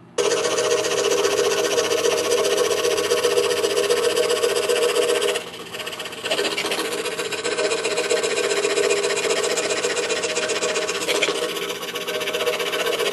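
DeWalt scroll saw running, its fine No. 3 Olson blade cutting a small wooden board along a pattern: a steady buzzing hum. The sound dips briefly twice, about halfway and again near the end.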